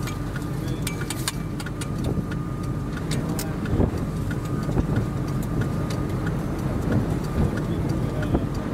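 Steady low rumble of a vehicle engine running, with a faint steady whine and scattered light ticks over it.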